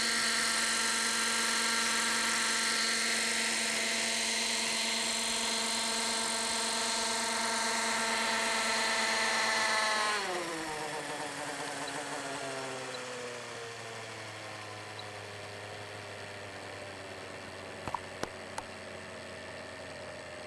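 The glow-fuel engine and rotor of a Kyosho Caliber 30 RC helicopter run at a steady high pitch in hover. About halfway through, after it sets down, the note falls away sharply and keeps sinking as the rotor slows. A few faint clicks come near the end.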